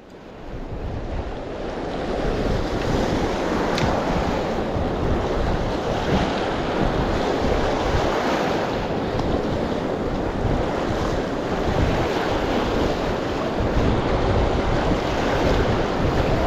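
Sea surf washing and sloshing over shoreline rocks, a steady rushing that fades in over the first couple of seconds, with wind buffeting the microphone.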